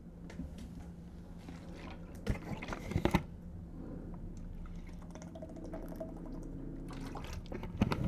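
A man drinking water from a plastic bottle: a few sharp clicks of the bottle being handled about two to three seconds in, then quiet liquid sounds as he drinks.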